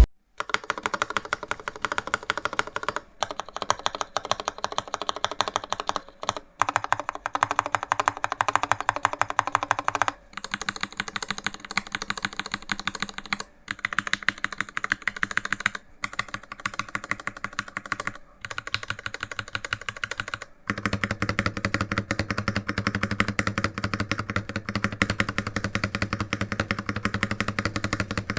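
Typing on a tenkeyless mechanical keyboard with Cherry MX Red linear switches: a fast, continuous clatter of keystrokes broken by brief pauses every few seconds. The clatter sounds deeper and fuller from about two-thirds of the way through.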